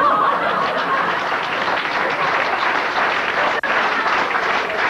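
A theatre audience applauding after a punchline, dense and steady, with a momentary gap about three and a half seconds in.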